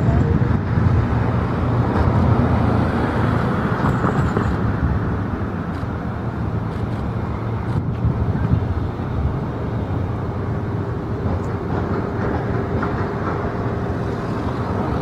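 Steady low rumble of outdoor airport ambience, with engine and traffic noise and no distinct events.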